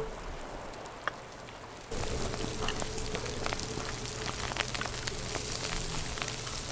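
Wood campfire crackling, with many sharp pops over a steady hiss of burning logs, starting suddenly about two seconds in after a quieter stretch with a single click.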